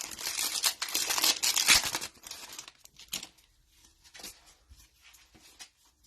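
Plastic trading-card pack wrapper being torn open and crinkled for about two seconds, then a few light clicks and rustles of cards being handled.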